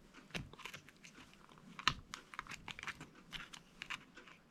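Needle-nose pliers twisting thin copper wires together: a faint run of small, irregular clicks and scrapes, with one sharper click about two seconds in.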